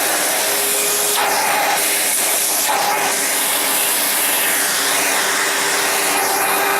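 Steady rush of air from a motor-driven cleaning tool at work on a turntable: a loud even hiss with a steady low hum underneath, briefly interrupted a couple of times early on.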